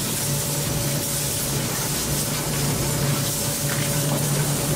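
Steady rushing hiss of sea and wind on an open fishing-boat deck, over a low machinery hum.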